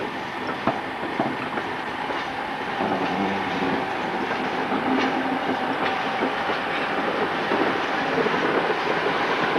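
Railway train running along the track, a steady rolling rumble with scattered clicks of the wheels over the rails.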